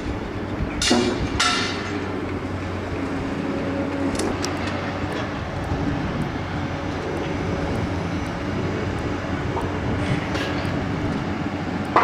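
Construction-site machinery running steadily, a low engine drone with a continuous rattling rumble, and a couple of sharp metallic clanks about a second in.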